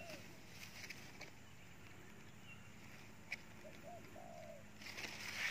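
A spotted dove cooing: a short, low phrase of two quick notes and a longer rolling note about four seconds in, after the tail of another coo at the start. A rustle is heard near the end.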